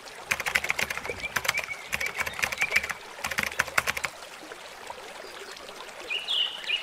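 Rapid, irregular clicking for about the first four seconds over the steady rush of the South Platte River. A bird chirps in short, falling notes near the end.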